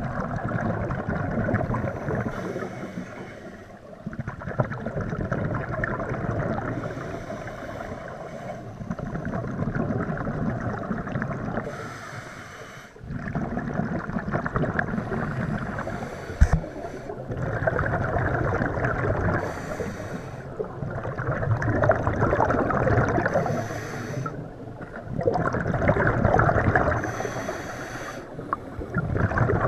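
A scuba diver breathing through a regulator underwater: each exhalation sends a burst of bubbles bubbling past, roughly every four seconds, with a short hiss of inhalation in the gaps between.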